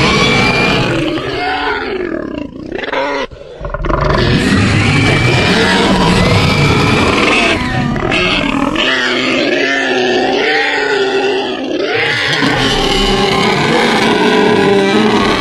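Custom monster sound effects for a boar-like creature: layered grunts and roars, running almost without a break, with a brief drop about two to four seconds in.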